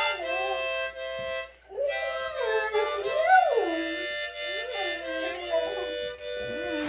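Harmonica playing held chords while a dog howls along to it in long wavering howls that slide up and down in pitch, loudest about three seconds in.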